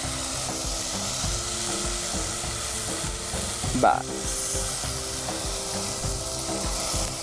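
Sliced onions and tempering spices sizzling steadily in hot oil in a pan as tamarind pulp and a little water are poured in.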